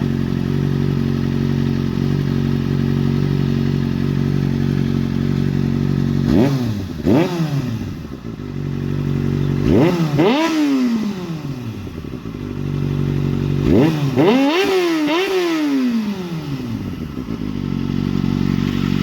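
2007 Kawasaki Ninja ZX-6R's inline-four, warmed up and breathing through a Yoshimura aftermarket exhaust with a carbon fibre tip, idling steadily and then blipped: two quick revs about six seconds in, a longer rev near ten seconds, and a double rev around fourteen to fifteen seconds, each falling back to idle. The revs go up to about 10,000 rpm.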